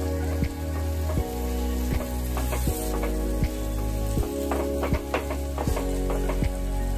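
Egg chutney of egg, onion and tomato masala sizzling in a nonstick kadhai while a slotted plastic spatula stirs and scrapes it in short strokes. A music track with a steady beat plays underneath.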